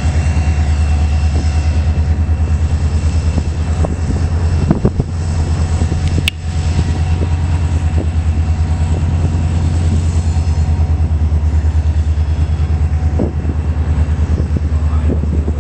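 Canadian National EMD SD40-2 diesel locomotive, its 16-cylinder two-stroke EMD 645 engine running steadily with a loud, low, fast-pulsing throb. A single sharp click sounds about six seconds in.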